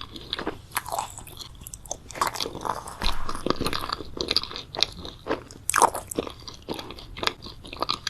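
Close-up chewing of crunchy food: a run of irregular crisp crunches and mouth sounds, several a second, heaviest about three seconds in and again near six seconds.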